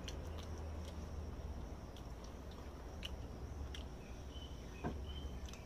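Steady high insect chirring in the background, with scattered light clicks of a spoon against a plastic lunch box and a low steady hum.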